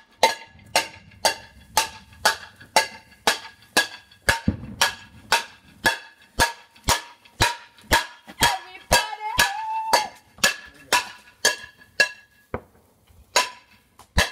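A metal cooking pot banged over and over, about two strikes a second. Each strike is a sharp clang that rings on. This is pot-banging noise-making to greet the New Year.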